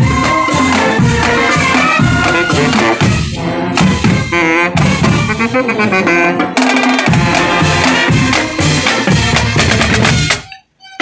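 Marching band playing: a brass melody over snare and bass drums. The music stops abruptly about ten and a half seconds in, and one drum hit comes at the very end.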